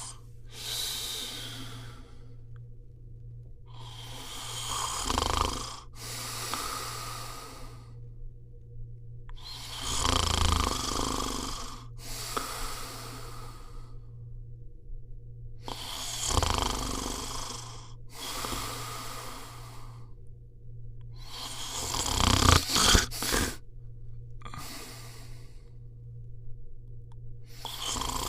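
A sleeping Landseer Newfoundland dog snoring. The breaths come in pairs, in and out, about every six seconds, with a few short sharp snorts near the end. A steady low hum sits underneath.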